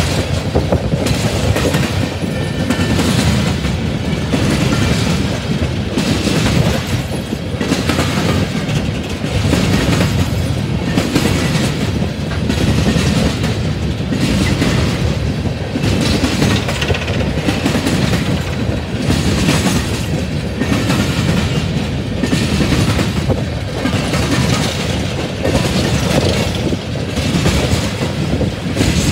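Empty coal cars of a freight train rolling past: a steady, loud rumble of steel wheels on rail, with a regular clickety-clack that pulses about once a second as the wheel sets go by.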